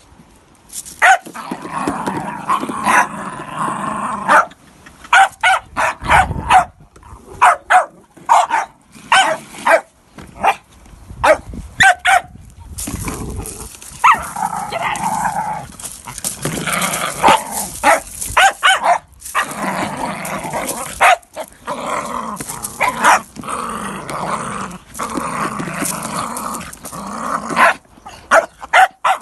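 Jack Russell terriers barking sharply again and again and growling, with long stretches of unbroken growling between runs of barks in the second half.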